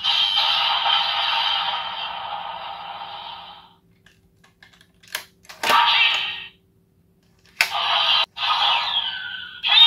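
A DX Valvarusher toy plays an electronic sound effect that fades out by about three and a half seconds in. Then come sharp plastic clicks as the card is pulled and the weapon's parts are moved, each followed by short electronic effects from the toy's speaker.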